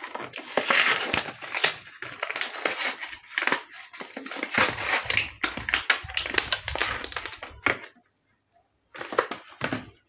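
Paper and packaging crinkling and crumpling in the hands while a tube of silicone sealant is unwrapped: a busy stretch of rustling that stops about eight seconds in, then a short burst near the end.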